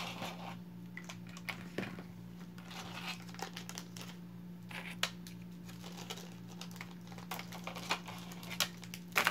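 Scattered crinkling rustles and light clicks from beaded bracelets being handled, the loudest click near the end, over a steady low hum.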